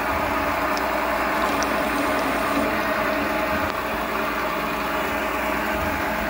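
Small Chinese benchtop metal lathe running steadily, with a motor and gear whine of several level tones over a dense hum, as the cutter turns down round bar stock.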